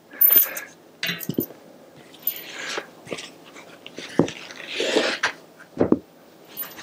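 Bicycle tyre being worked off the wheel rim by hand: irregular rubber rubbing and scraping, with two sharp knocks about four and six seconds in.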